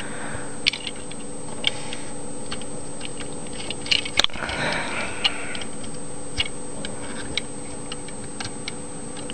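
Plastic parts of a Transformers deluxe action figure clicking and snapping as it is transformed by hand: scattered, irregular ticks of joints and panels moving and locking into place.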